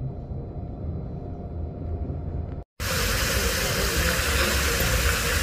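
Train running with a low, steady rumble; about two and a half seconds in it cuts off abruptly, and the louder, steady hiss of a fountain's water jets spraying and splashing takes over.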